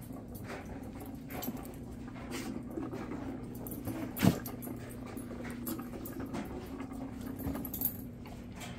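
A dog nosing and pushing a treat-filled rubber Kong toy around on carpet, with scattered short knocks and clicks as the toy bumps against furniture. The loudest knock comes about four seconds in.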